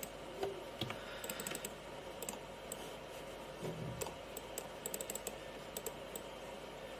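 Light clicks of a computer keyboard and mouse, coming in scattered short runs, as text is selected and edited.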